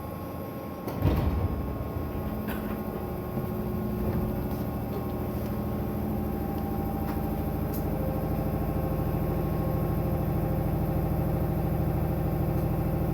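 JR 205 series 1000 electric train: a sliding door shuts with a thud about a second in, then the train pulls away, its running sound of motor and wheel tones slowly growing louder.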